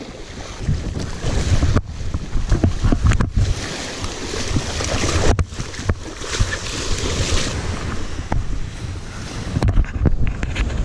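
Wind buffeting a chest-mounted action camera's microphone over the wash of breaking surf, with clothing brushing against the microphone at times.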